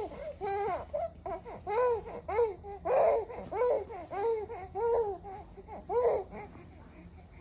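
Three-month-old baby making short, repeated rising-and-falling vocal sounds, about two a second, that die away near the end.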